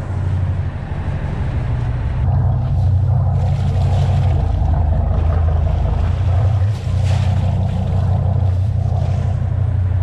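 Engine of a 40-foot Procharter P4 charter boat running as she pulls away from her berth: a steady low drone that grows louder about two seconds in, with water churning along the hull.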